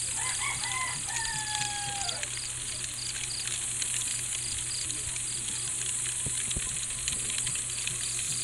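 Night-time outdoor ambience: insects chirping as a steady high buzz with a faint pulse about twice a second. About half a second in, a bird call slides slowly down in pitch for over a second. Scattered faint clicks sit over a low steady hum.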